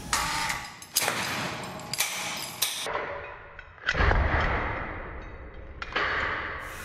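Three heavy hits about a second apart, then a loud thud about four seconds in as a fall-arrest harness on a drop-test dummy is jerked to a stop by its lanyard, dying away slowly with a reverberant ring. A smaller jolt follows near the end.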